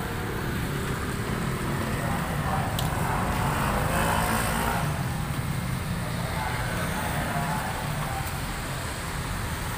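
Steady low rumble of road traffic with a hiss of rain over it, and one short sharp click about three seconds in.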